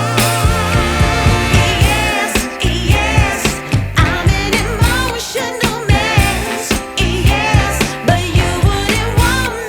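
Background music with a singing voice over a steady beat.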